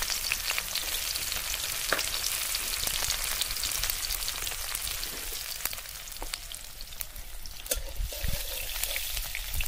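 Sliced onions sizzling and crackling in hot oil in a steel kadhai, easing off a little as they fry. They are stirred with a spatula near the end.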